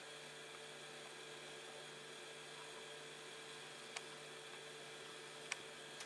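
Low steady hum of the 862D+ hot air station with its gun holstered, the blower fan running on to cool the heater before the unit cuts the air off. Two faint clicks about 4 and 5.5 seconds in.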